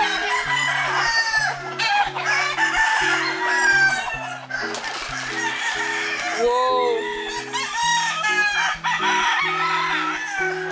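Many roosters crowing and chickens clucking at once, with background music that has a steady beat and a stepping bass line running under them.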